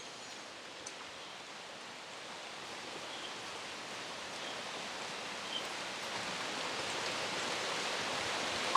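Steady rain falling in the rainforest: an even hiss that grows gradually louder.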